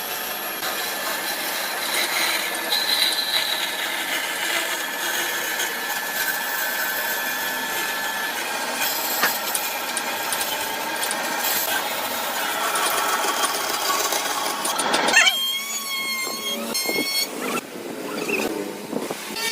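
Woodworking power tool running against mahogany, a steady grinding rasp. About fifteen seconds in, the sound changes abruptly to a wavering high whine.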